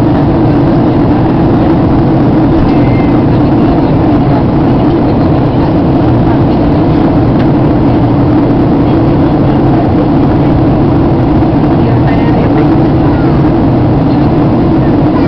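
Steady, loud cabin noise inside a Boeing 737-800 airliner in descent: a constant drone with a strong low hum that does not change.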